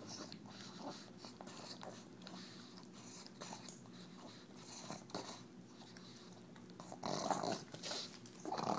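A pug licking and snuffling at the opening of a KONG toy, a run of quick licking clicks over snorting breaths. About seven seconds in, and again near the end, come louder snorts.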